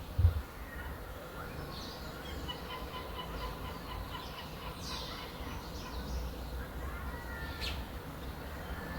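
Small birds calling and chirping outdoors, including a rapid run of short repeated high notes, over a steady low background rumble. There is a brief low thump just after the start.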